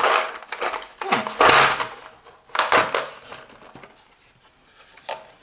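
Hard plastic tool case being handled and moved on a tabletop: scraping and knocking in three short bursts over the first three seconds, then quieter, with a small click near the end.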